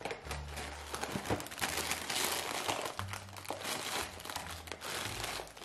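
A cereal box being opened: the cardboard top and the plastic inner bag crinkle and rustle, with some tearing, as the bag is pulled open.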